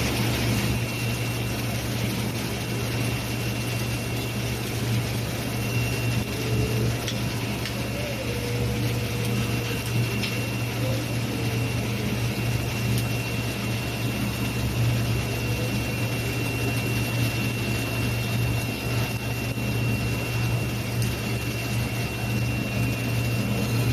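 Automatic seam-welding machine running along a steel lighting pole: a steady low electrical hum with an even hiss and a faint constant high whine over it.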